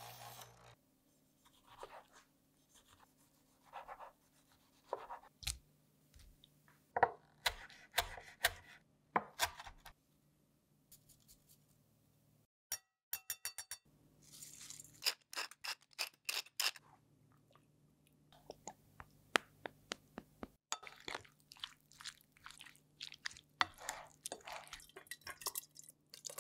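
Kitchen food-prep handling sounds: scattered taps, knocks and scrapes of utensils on a ceramic bowl and cutting board, ending with clinks of a steel funnel and a glass jar as a chopped tomato mixture is spooned in. A low steady hum runs underneath.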